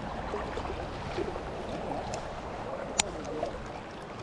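River water flowing steadily, with one sharp click about three seconds in.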